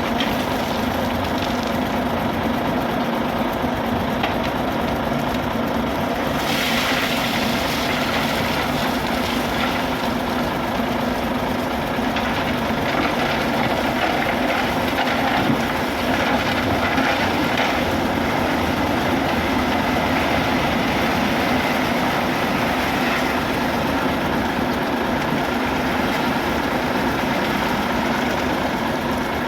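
Shantui SD16E crawler bulldozer's diesel engine running steadily while it works, with a brighter, harsher edge to the sound from about six seconds in.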